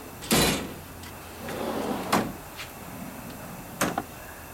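Metal tool chest drawer being slid open and shut: a loud half-second slide near the start, a second slide that ends in a sharp clack about two seconds in, and a short double knock near the end.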